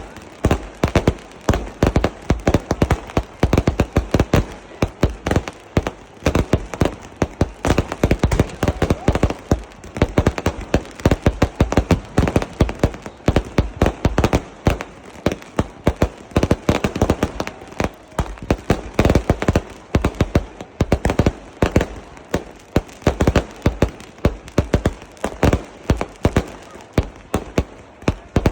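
Fireworks and firecrackers going off in a dense, unbroken run of sharp bangs and crackles, several a second.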